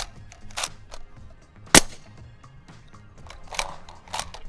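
A suppressed Q Mini Fix bolt-action rifle in .300 Blackout with a CAT ODB Ti suppressor, firing 220-grain subsonic ammunition, gives one short, sharp shot a little under two seconds in. There is no supersonic crack from the bullet, and the shot is "Hollywood quiet". Softer clicks and clatters come before and after it, over background music.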